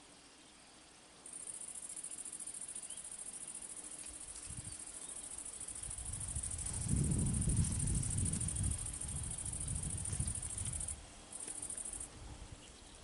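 An insect's high, steady buzzing song starts about a second in, breaks off briefly, returns and stops shortly before the end. Underneath it, a louder low rumble builds from about halfway through and fades out again.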